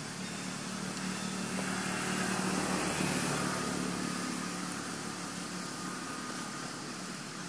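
Engine hum of a motor vehicle going by, growing louder to a peak about three seconds in and then fading away, over a steady high hiss.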